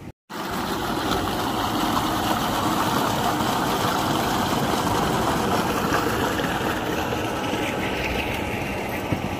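Water gushing from a tubewell pipe into a concrete channel: a steady, loud rush of water.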